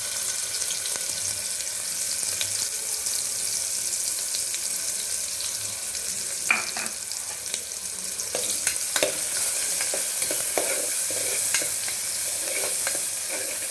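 Onions sizzling as they fry in hot oil. From about halfway through, a spoon stirs them and knocks against the pan several times.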